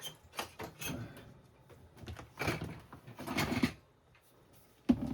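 Household knocks and clatters, with two longer scraping sounds about two and a half and three and a half seconds in and a sharp knock near the end.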